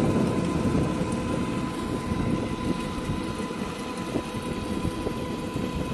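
Electric-converted Desna folding bicycle riding at about 36 km/h on asphalt: wind rushing over the handlebar-mounted microphone and tyre noise, with a steady high whine from the front hub motor under power.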